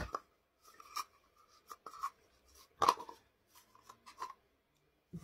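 Hands rummaging through product packaging, making scattered short scratching and rustling sounds with a few light clicks, the loudest rustle about three seconds in.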